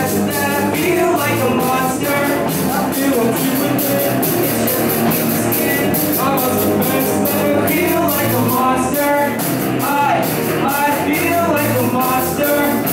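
Amateur rock band playing live: vocals sung into microphones over electric guitar and a Ludwig drum kit with a steady beat of drums and cymbals.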